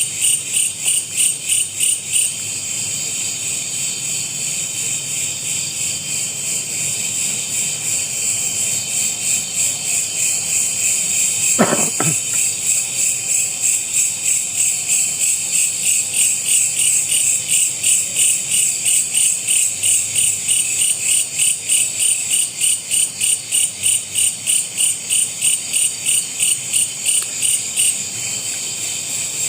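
Night insects, crickets or similar, chirping loudly in an even pulsing chorus, about three pulses a second. A single short knock about twelve seconds in.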